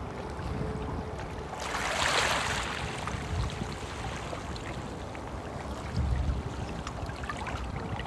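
A small stream flowing and babbling steadily over a low rumble, with a brief louder rush of water about two seconds in.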